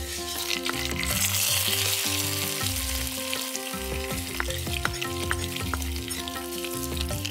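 Hot coconut-oil tempering of mustard seeds, dried red chilies and curry leaves poured into shrimp curry in a clay pot, sizzling loudly as it hits the gravy, with a wooden spatula scraping the small pan clean. The sizzle is strongest in the first few seconds, then eases off with scattered crackles.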